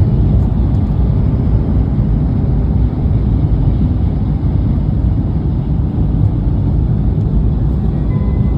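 Steady low rumble of a Tohoku Shinkansen Hayabusa train running, heard inside the passenger car. Near the end, the tones of the onboard chime begin to sound over it.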